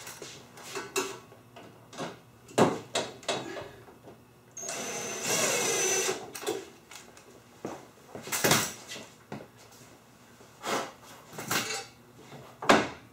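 A power driver with a Torx bit runs steadily for about a second and a half, driving a bolt in loosely, among scattered clicks and knocks of tools and metal parts being handled.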